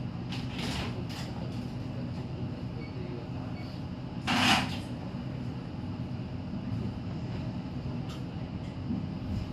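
Steady low hum inside an electric train car, with a few faint clicks near the start and one short, louder hiss about four and a half seconds in.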